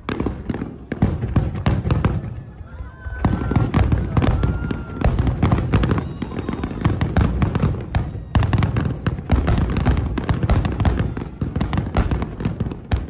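Large aerial fireworks shells bursting in rapid succession, with booms and crackling overlapping in a dense barrage that swells twice.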